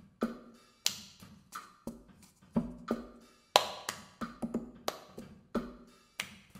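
Cup-game rhythm played with a cup and hands: sharp hand claps alternating with taps and knocks of the cup on a cushioned desk, in a repeating pattern whose loudest stroke comes round about every two and a half seconds.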